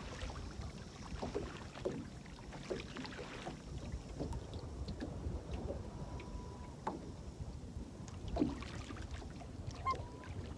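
Quiet boat ambience: low wind and water noise with scattered small knocks and clicks, and a faint short steady tone about midway.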